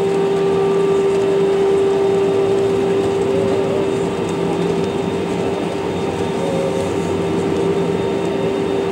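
Cabin noise inside an Airbus A320-200 taxiing after landing: a steady rumble of engines and air conditioning with a constant mid-pitched hum running through it.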